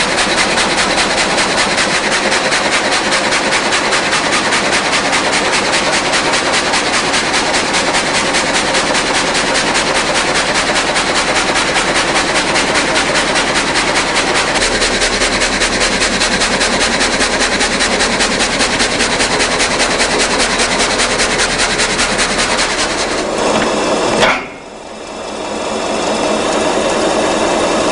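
Multi-blade rip saw machine running with a loud, fast, even rattle. Near the end comes one sharp crack, the rattle stops, and the machine runs on with a steadier hum.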